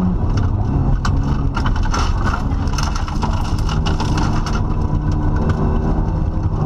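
Rally car engine under load heard from inside the cabin on a gravel stage; its note drops suddenly at the very start, as in a lift or gear change. From about a second in to about halfway, a spatter of sharp clicks and knocks is heard, which is typical of gravel thrown against the car's underside.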